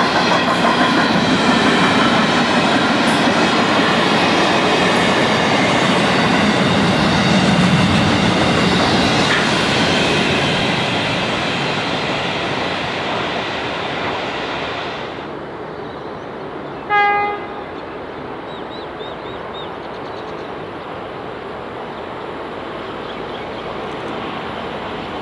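Intermodal freight train's container wagons rumbling and clattering past on the rails, the noise fading away after about ten seconds as the tail of the train draws off. About 17 seconds in, a train horn gives one short blast.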